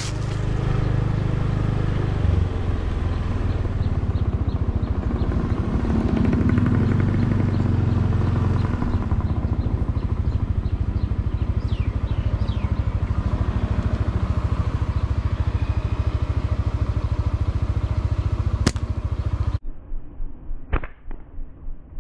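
Small motor scooter engine running steadily as it is ridden, with wind and road noise; it cuts off abruptly near the end to a quieter background with a sharp click.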